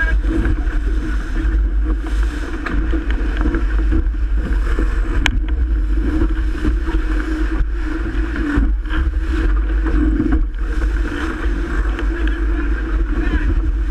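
Strong wind buffeting the microphone over water rushing along the hull of a Melges 24 sailboat sailing fast in 30+ knot winds, with a single sharp click about five seconds in.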